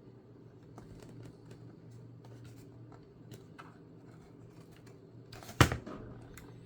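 Light scraping and small clicks from prying up the rubber covers on a laptop's underside, with one sharp knock about five and a half seconds in. A desktop PC left running gives a steady low hum underneath.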